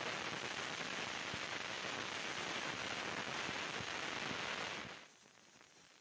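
Industrial vacuum cleaner hose sucking up dry soil and gravel: a steady rushing hiss of air, with crackling and clicking as grit and small stones rattle up the corrugated hose. It cuts off suddenly about five seconds in.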